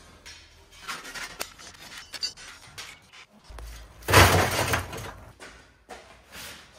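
Handling noises: a few clicks and knocks, then a loud clattering crash about four seconds in that lasts under a second, and a shorter one near the end.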